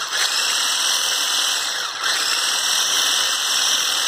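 Electric hand blender with a whisk attachment running steadily, beating chilled cream in a glass bowl to whip it, with a brief dip in sound about two seconds in.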